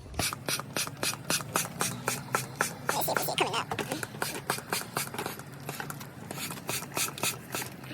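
Schwaben hand-pump oil extractor being pumped to build vacuum in its tank: quick, even strokes, each a short hiss of air, about four a second.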